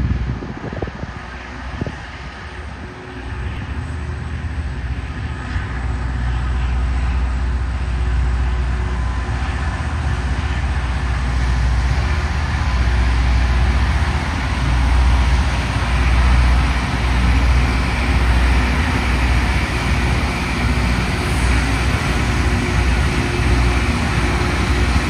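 Loram rail grinder train running along the track: a loud, steady roar that builds over the first ten seconds or so and then holds.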